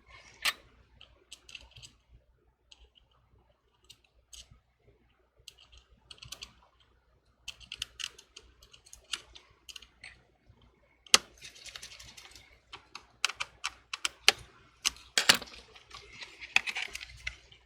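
Small clicks and taps of tiny tools and parts against an opened iPhone 6s during reassembly, as a bracket is screwed down over the battery connector. Sparse at first, busier from about halfway, with a few sharper clicks.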